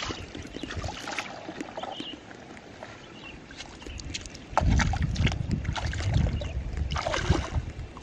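Water splashing and sloshing around a person's legs as they wade into a shallow river; quieter at first with small splashes, getting louder and heavier about halfway through.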